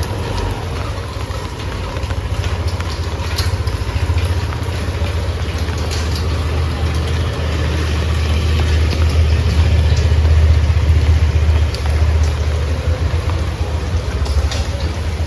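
Rain falling with scattered drop ticks, over a steady low engine rumble like a vehicle idling nearby. The rumble swells, is loudest about two-thirds of the way through, then eases a little.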